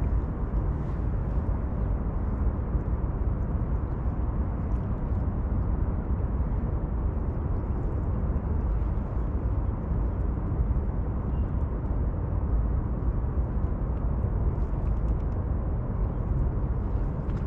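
Steady low outdoor rumble, with faint small ticks now and then.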